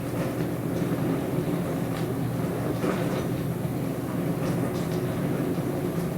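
Dishwasher running: a steady, even motor hum with faint, irregular swishing sounds on top.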